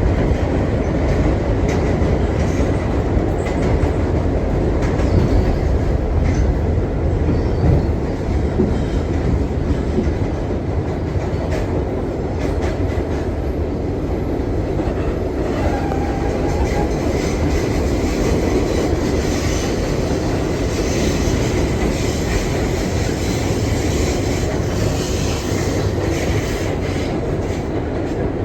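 R62 subway train running at speed, heard from on board: a steady rumble of wheels on rail with scattered clicks over rail joints. A light, high wheel squeal joins in the second half.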